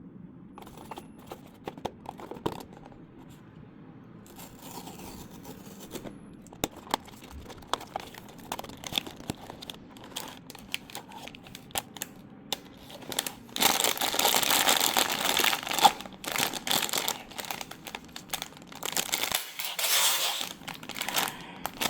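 Packaging of a toy being handled and torn open: scattered small clicks and rustles, then two longer bouts of loud crinkling and tearing, the first about two-thirds of the way through and a shorter one near the end.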